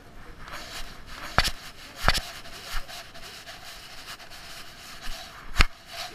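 The dog's fur rubbing and brushing against a body-mounted action camera as the dog moves, with three sharp knocks as the camera jostles: one about a second and a half in, another soon after, and one near the end.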